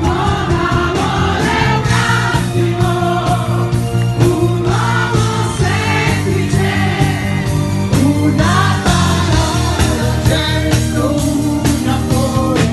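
Live band playing an Italian pop song over a steady drum beat, with lead vocals and a crowd singing along.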